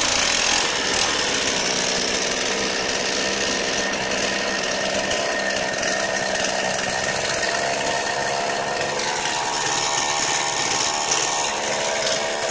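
New DevonPro 22-inch 58cc two-stroke chainsaw running steadily on its first test run.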